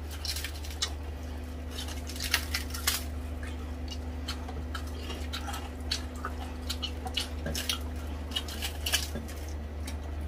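Scattered crisp crunches and clicks of crispy pata (deep-fried pork knuckle) skin being bitten, torn and chewed, over a steady low hum.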